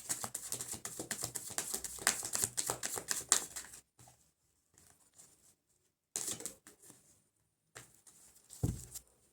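Tarot cards being shuffled: a fast run of papery flicks for about four seconds, then a few light handling sounds and a soft thump near the end as a card is laid down.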